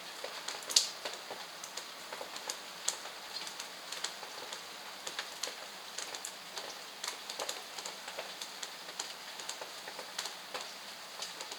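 Steady rain with individual drops ticking irregularly on hard surfaces; one sharper drop hit stands out about a second in.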